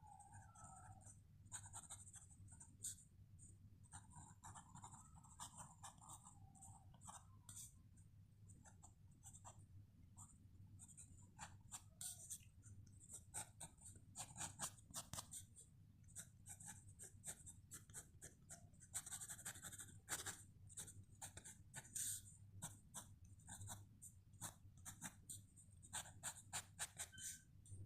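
Sketching on paper heard close up: many short, scratchy strokes in quick runs, some spells denser than others.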